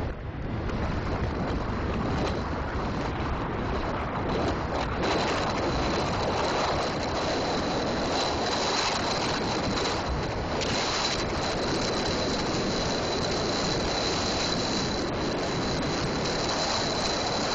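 Wind rushing over the microphone of a camera on a bicycle speeding down a steep 7% grade: a steady, even rush of wind noise.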